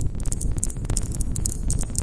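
Wood campfire crackling: a dense, irregular run of sharp pops and snaps over a steady low rumble of the burning fire.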